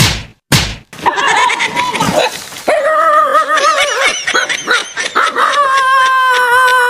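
Two sharp slap-like whacks, then a dog yelping and whining, going into a long, wavering howl held through the second half.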